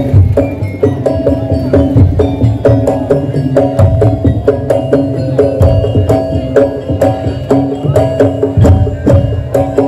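Madurese daul percussion ensemble playing loud music: deep drums keep a fast, dense beat under pitched metal percussion tones repeating a short melody.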